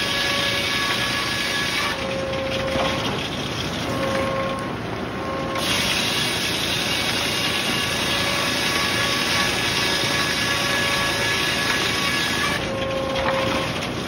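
Large circular sawmill blade ripping red oak into 1x8 boards: a loud, steady cutting hiss over the machine's running noise, with a faint ringing tone from the blade. The high hiss eases for a few seconds about two seconds in and again near the end, as the blade runs between cuts.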